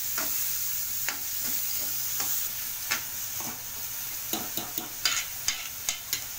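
Chopped onions, curry leaves and green chillies sizzling in hot oil in a kadai as they are sautéed towards brown, with a metal spoon scraping and clicking against the pan as it stirs them. The spoon strokes come thicker in the second half.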